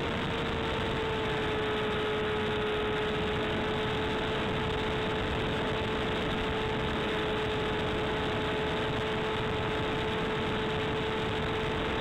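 Electric motor and propeller of a Hawk Sky RC plane in flight, a steady whine heard from on board, over heavy wind noise on the microphone.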